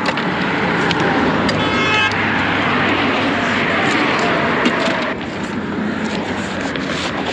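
Steady road-traffic noise from passing cars. A short horn-like tone sounds about one and a half seconds in, and the noise eases slightly about five seconds in.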